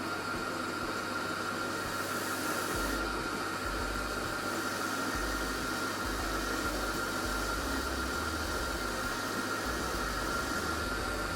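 Drill press driving a stump grinder tooth-sharpening grinder, running steadily with a constant high whine while it grinds the tooth tip under a 2 kg weight.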